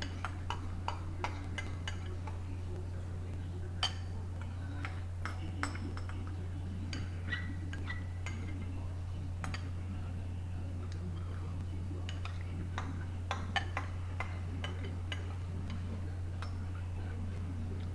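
Scattered light clicks and clinks, irregularly spaced, over a steady low hum.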